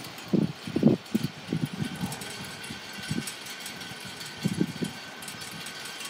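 Wind buffeting the microphone in irregular low gusts. The gusts are heaviest in the first second and a half and again about four and a half seconds in, over a steady outdoor hiss and a faint steady high tone.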